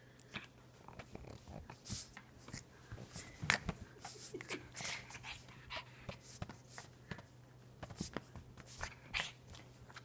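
Pug making weird play noises, sounding like he is fighting for his life, while snapping at a waved sock, in an irregular run of short bursts.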